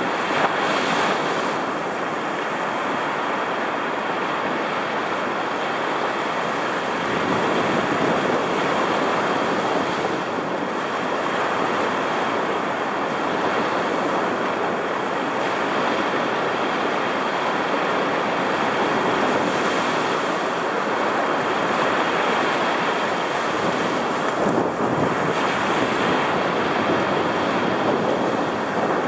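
Heavy storm surf breaking and washing up the beach in a continuous roar that swells and eases as the waves come in. Wind buffets the microphone.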